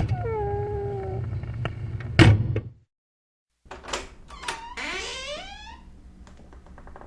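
Door hinges creaking. A squeak of about a second is followed by a loud bang of the door about two seconds in. After a short break come a couple of clicks and a longer, wavering creak that rises in pitch.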